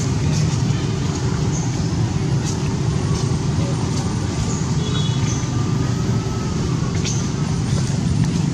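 Steady low rumble of road traffic, with a few faint high chirps scattered through it.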